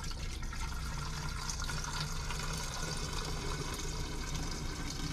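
Liquid poured steadily from a jug into a car's windshield washer reservoir, a continuous splashing fill as the tank is topped up.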